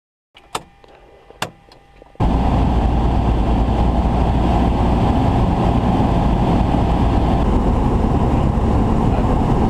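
Cessna 172's engine running and air rushing past, heard inside the cabin as a loud, steady noise that starts suddenly about two seconds in. Before it there are two faint clicks.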